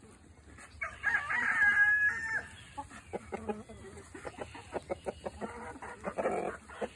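A rooster crows once, starting about a second in and lasting about a second and a half. Then rapid short clicks of ducks and chickens dabbling and pecking at feed in a bowl, with some clucking near the end.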